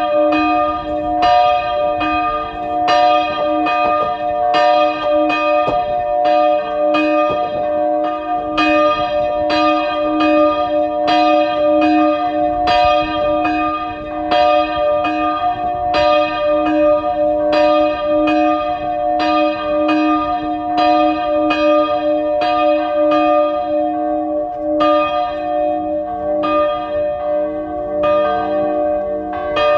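Hand-swung church bells ringing a steady peal, a stroke about every second, each note ringing on into the next. It is the evening call to the Rosary.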